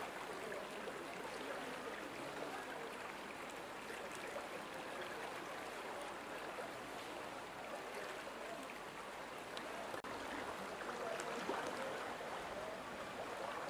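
Muddy floodwater flowing fast down a village lane, a steady rushing sound.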